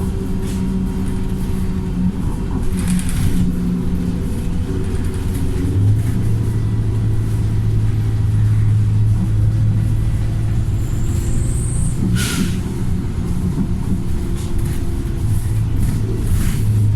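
Remapped Wright StreetLite single-deck bus's diesel engine running under load, its drone strengthening and easing as it pulls. About twelve seconds in comes a short, sharp hiss of released air, the bus's 'sneeze'.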